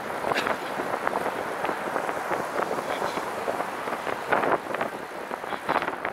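Riding noise from a Catrike 700 recumbent trike rolling along a paved street: a steady rush of tyre and wind noise on the trike-mounted microphone, dotted with many small clicks and rattles.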